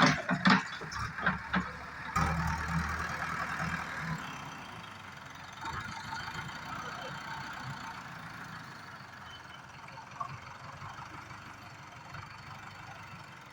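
JCB 3DX backhoe loader's diesel engine running, with several sharp clanks in the first two seconds. The engine then settles into a steady, quieter run.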